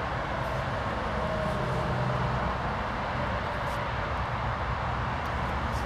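Steady outdoor background noise: a low rumble with an even hiss over it and a few faint steady tones.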